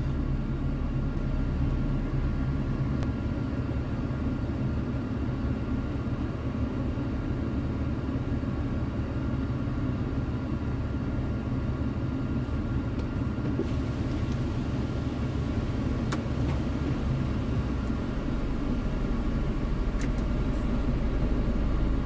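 Heavy truck's diesel engine running steadily at a low even hum, with a couple of faint clicks late on.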